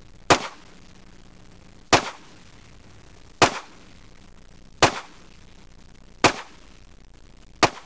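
Heckler & Koch USP pistol fired six times at a slow, even pace, about one shot every second and a half. Each report is sharp and has a short echoing tail.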